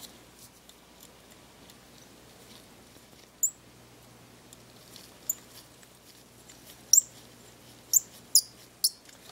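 Precision screwdriver turning tiny screws into a compact digital camera's metal shield: a handful of short, high-pitched clicks and squeaks at uneven intervals, starting about three seconds in.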